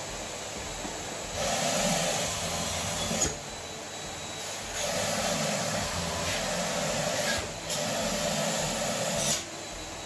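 Canister vacuum cleaner running with a steady hiss, its noise jumping louder three times for about two seconds each as a balloon is held against the hose nozzle, with a small click as each of the first and last louder stretches ends.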